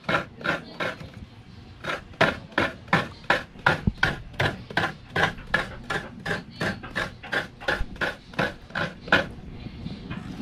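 Coconut meat being grated by hand on a bench-mounted coconut grater (kudkuran) into a metal basin: rhythmic rasping strokes, about three a second, pausing briefly near the end.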